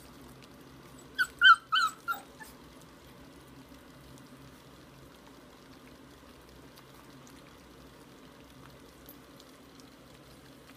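A puppy gives four short, loud, high-pitched yips about a second in, over the faint slurping of a litter of puppies eating from a shared bowl.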